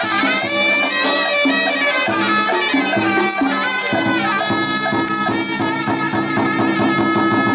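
Live traditional Vietnamese folk music: a reedy wind instrument holding a sustained melody over drums and cymbal-like percussion, which beats about three times a second through the first half and then settles into a steady shimmer.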